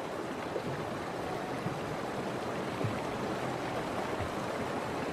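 Fast-flowing river water rushing steadily, churning around bison as they swim across.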